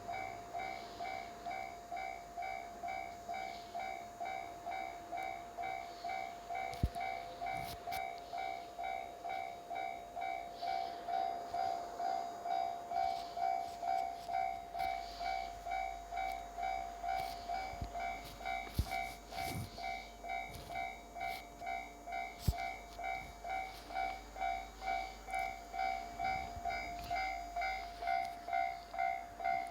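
Japanese level-crossing warning bell ringing steadily, an electronic two-tone clang repeating quickly and evenly, as the crossing is closed for a train. From about halfway through, a low rumble and a few sharp knocks join it as the EH500-hauled freight train nears.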